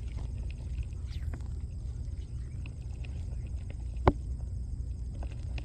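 Outdoor background noise: a steady low rumble with scattered faint clicks, and one sharp click about four seconds in.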